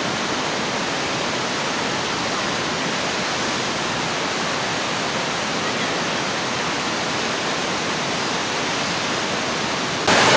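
Waterfall's steady rushing water noise, even and unbroken, jumping abruptly louder just before the end.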